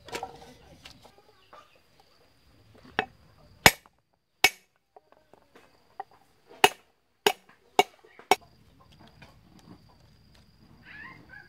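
A cleaver chopping on a wooden chopping board: about seven sharp, separate strikes at an uneven pace, starting about three seconds in.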